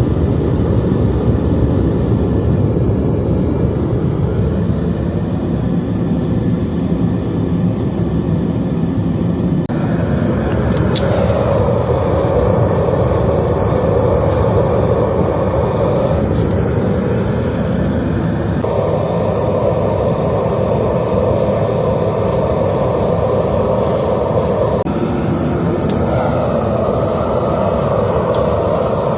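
Burner of a crucible melting furnace roaring steadily. Its tone brightens and dulls a few times along the way.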